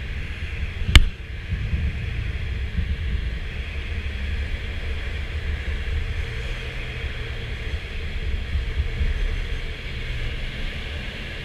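Steady rumble of airflow and the tow plane's engine drone in the cockpit of a K13 glider on aerotow. A single sharp click sounds about a second in.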